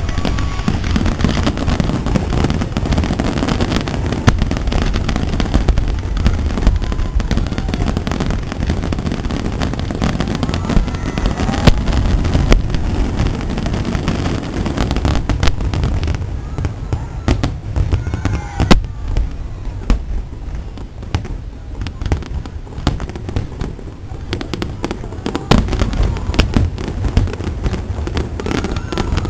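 Large fireworks display: a dense barrage of booming shell bursts and crackling reports. It thins out for several seconds past the middle, then builds back up.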